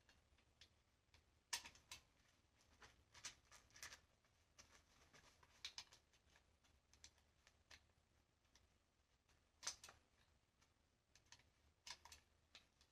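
Faint, scattered sharp clicks of cartridges being thumbed out of and back into gun magazines, uneven and a second or more apart, with a short cluster in the first few seconds and a few louder clicks near the end.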